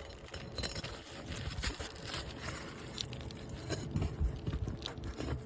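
Asphalt roof shingles scraping and crackling as they are lifted and a roofing nail is worked loose beneath them: scattered short clicks and scrapes over a low rumble.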